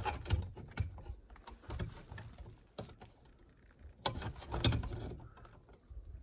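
Handling noise as stiff electrical wires are tucked into a wall box and a coach-light fixture is worked into place: irregular clicks, rattles and knocks, with the loudest cluster about four seconds in.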